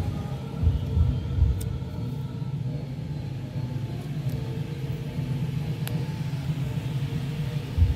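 A steady low mechanical rumble with a running, engine-like hum. A few dull low thumps come in the first second and a half and again near the end, with a few faint sharp clicks between them.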